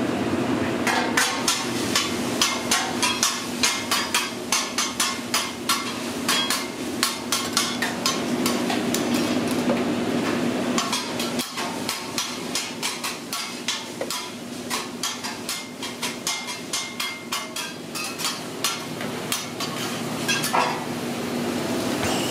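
Metal spatulas clacking and chopping steak on a flat-top griddle, a few sharp strikes a second, softer in the second half and stopping near the end, over a steady hum of kitchen ventilation.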